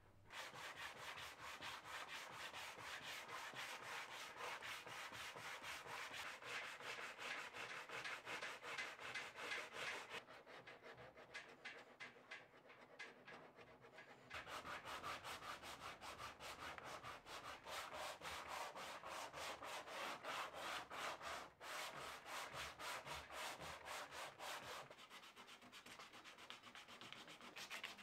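Hand sanding of a fiberglass boat with a sanding block: a rasping rub in quick back-and-forth strokes. It goes softer for a few seconds in the middle and again near the end.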